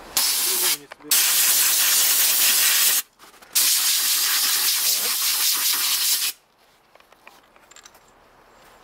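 Aerosol spray can hissing in three bursts, a short one, then two long ones of about two and three seconds, as a mesh filter element from an ASh-82T radial engine is sprayed clean.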